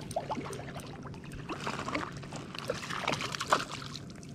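Water splashing and trickling in small irregular bursts, over a faint steady low hum.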